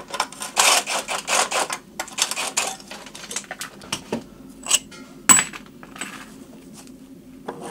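Hand tools at work on engine fasteners: a couple of seconds of metallic scraping and rattling, then a few separate sharp metal clinks, the loudest about five seconds in.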